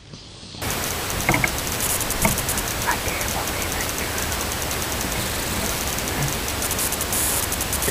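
Steady loud hiss on a bow-mounted camera's microphone, cutting in suddenly about half a second in, with a man's faint voice or breathing over it.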